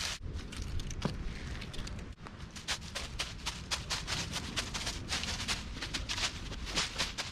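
Footsteps on a trail, crunching, with many small irregular crackles over a steady low rumble.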